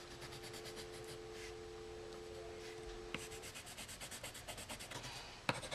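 Yellow coloured pencil scribbling back and forth on paper, shading in a drawing. The strokes turn faster and more regular about halfway through.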